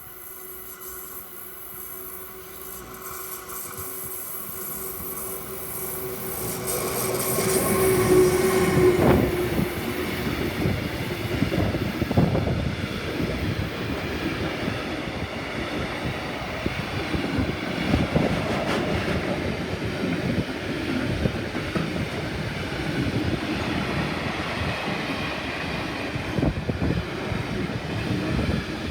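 DB Cargo mixed freight train approaching and passing: a steady hum from the locomotive grows louder until it goes by about eight seconds in, then a long string of freight wagons rolls past, clattering steadily with wheel clacks over the rail joints.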